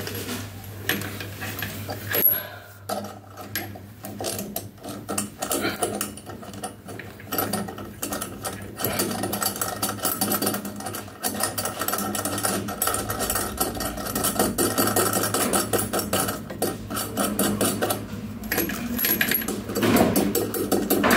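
Rapid clicking and scraping from a hand working faucet mounting hardware up behind a ceramic washbasin, growing busier after a few seconds, over a steady low hum.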